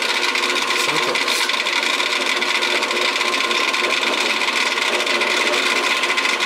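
Drill press running with a steady whine, its bit drilling a screw hole into an intake plenum.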